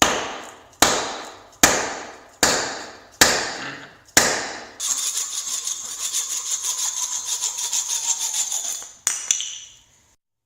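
Sharp ringing blows while an axe head is being seated on its handle, six in a row about one every 0.8 seconds. Then comes about four seconds of fast continuous scraping with a steady metallic ring in it, and one more blow near the end.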